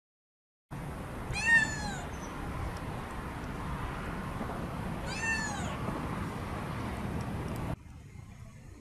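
Kitten meowing twice, two high, thin cries about four seconds apart, over steady outdoor background noise.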